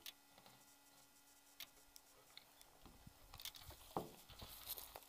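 Near silence broken by scattered faint clicks and rustles: handling noise of fingers on a small camera held in the hand, over a faint steady hum.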